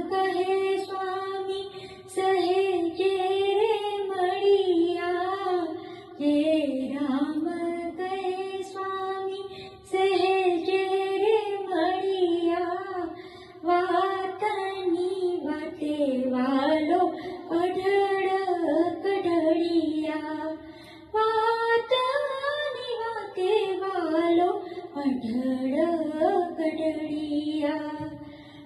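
A woman singing a Gujarati devotional song, a single melodic voice in phrases a few seconds long with short breaths between them.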